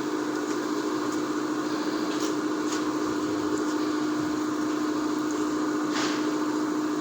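Steady mechanical hum with one constant mid-pitched tone over a steady hiss. A brief soft rustle comes about six seconds in.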